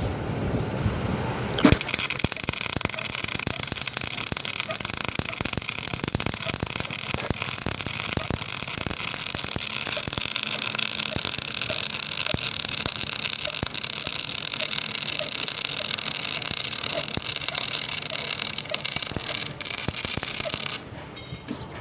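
MIG welding arc crackling steadily as a bead is run, starting with a sharp strike about two seconds in and cutting off suddenly near the end.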